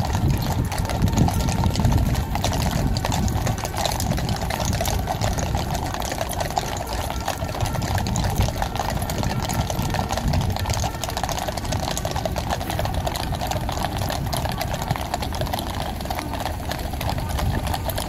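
Many horses' hooves clattering on the paved road as a mounted column passes at a walk, with voices murmuring.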